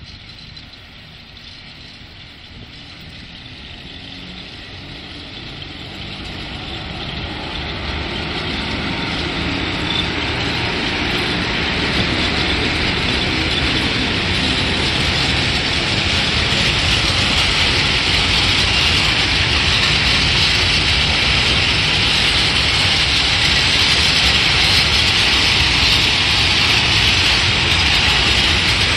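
PKP class ET22 six-axle electric freight locomotive passing, followed by open freight wagons rolling by: a steady rumble and rush of steel wheels on rail that grows louder over the first ten seconds or so and then holds steady.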